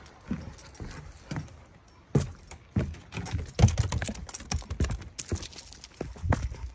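Footsteps on weathered wooden boardwalk planks: a run of knocking steps with low thumps, starting about two seconds in.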